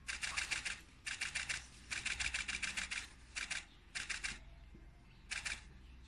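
Camera shutters firing in bursts of rapid clicks, six bursts in all. The bursts come close together at first, then grow shorter and farther apart.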